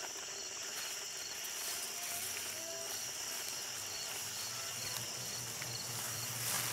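Crickets chirping in a steady night-time insect chorus over a hiss of background ambience, with a low hum coming in about two seconds in.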